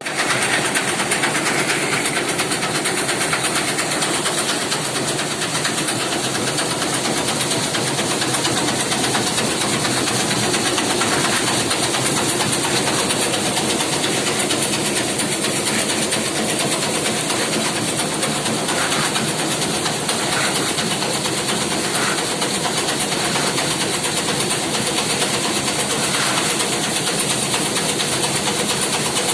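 Muri (puffed-rice) roasting machine running: a steady, continuous mechanical rumble and rattle.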